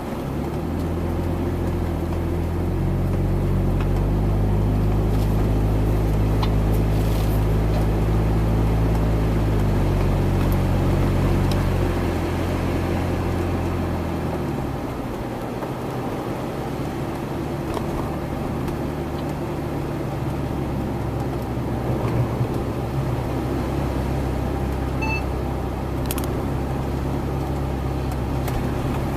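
A motor vehicle's engine running. Its pitch steps up about three seconds in, holds, and drops away between twelve and fourteen seconds, settling into a steadier low hum.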